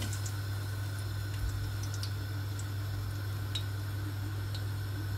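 Sugar going into hot ghee in a cooking pot: a faint steady hiss over a steady low hum, with a few light ticks every second or so.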